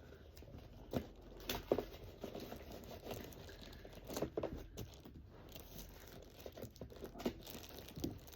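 A parcel's packaging being cut and torn open by hand: irregular tearing and rustling, with a few sharp clicks and knocks.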